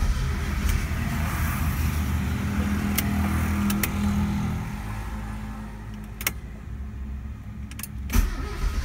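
Mazda 323 Lantis engine being cranked by its starter motor without catching; the tachometer stays at zero, a no-start. The cranking fades out about five seconds in, and a few sharp clicks follow.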